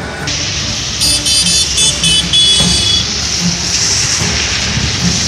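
Road traffic driving through floodwater: a steady wash of tyres through water with running engines. Several short, high-pitched vehicle horn toots come about a second in, and the last one is held a little longer.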